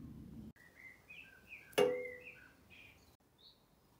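Small birds chirping in short calls. About two seconds in there is a single sharp clink that rings briefly, the loudest sound. A low steady rumble cuts off abruptly near the start.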